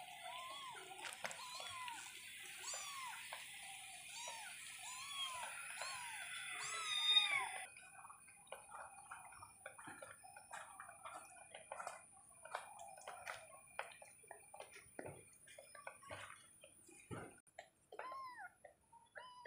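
Young domestic kitten meowing over and over: short, high, arching calls about once a second, the loudest and longest a little before halfway. After a sudden break the meows are fainter and fewer, mixed with light rustling and clicks of handling, then pick up again near the end.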